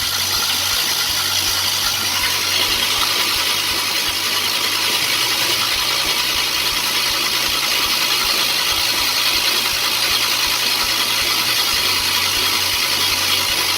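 Starter motor cranking a GM 3800 L26 V6 with its spark plugs out, running steadily, to prime the oil pump and push oil up to the lifters after a top-end rebuild.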